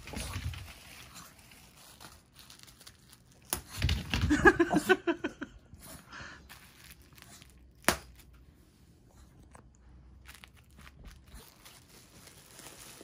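Bubble wrap being handled and crinkled, with single sharp bubble pops about three and a half and eight seconds in. A louder, short pitched vocal sound follows just after the first pop.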